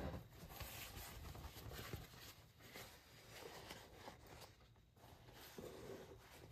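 Faint handling noises: irregular rustling and scraping with a few soft knocks.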